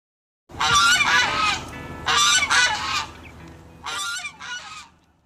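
A large bird's loud, harsh calls, given in three pairs about a second and a half apart.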